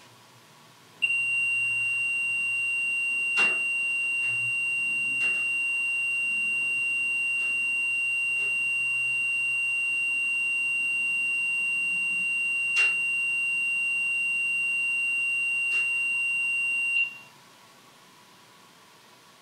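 A REM pod paranormal sensor sounding a single steady high-pitched beep for about sixteen seconds, its alarm for a detected temperature change, which then cuts off. A few faint clicks sound while it beeps.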